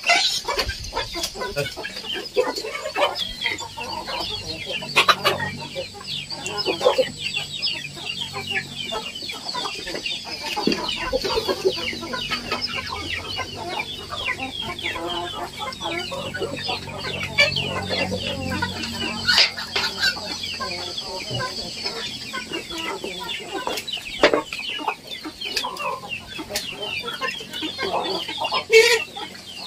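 A flock of Indonesian native kampung chickens clucking continuously as they feed, with a few sharp knocks scattered through.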